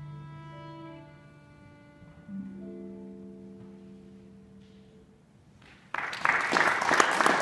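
Slow music on bowed string instruments, long held notes that fade down. About six seconds in, a sudden loud rush of noise cuts in and continues to the end.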